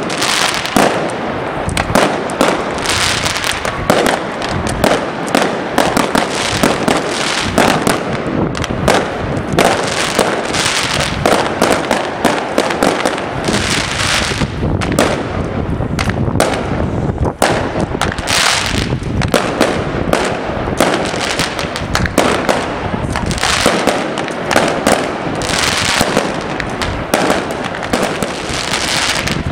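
Aerial fireworks bursting overhead: a dense, unbroken run of loud bangs.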